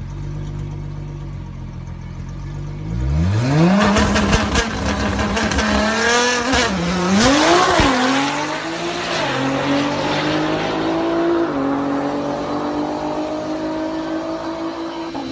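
Nissan GT-R's twin-turbocharged V6 idling, then launching hard about three seconds in for a drag run: the revs climb steeply and drop back at each upshift, then the note keeps rising slowly while fading as the car pulls away.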